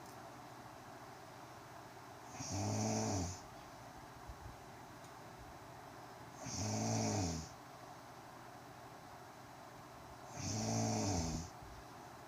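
A woman snoring: three loud snores, each about a second long, coming roughly every four seconds with quiet breathing gaps between.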